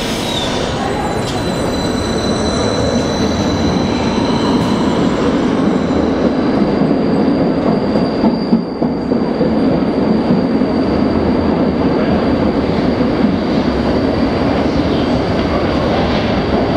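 Berlin U-Bahn train pulling out of an underground platform: a steady rumble of wheels on the rails with a thin, high whine held above it.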